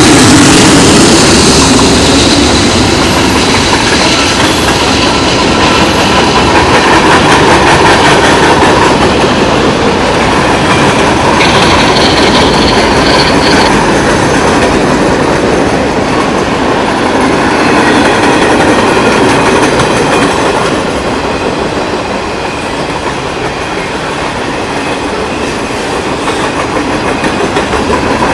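Norfolk Southern freight train passing close by at speed. A diesel locomotive's engine goes by at the start, then the steady rumble and clatter of freight-car wheels on the rails, with a brief high wheel squeal about twelve seconds in.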